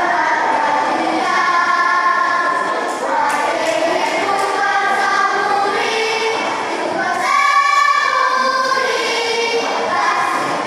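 Children's choir singing a masamper song, the Sangihe folk choral form, with many voices in unison. About seven seconds in they hold a long, louder note before the melody moves on.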